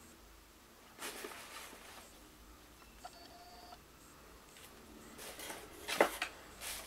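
Paper and packaging rustling while a boxed camera ball head is unpacked, with a short faint beep-like tone about three seconds in and a sharp click near the end.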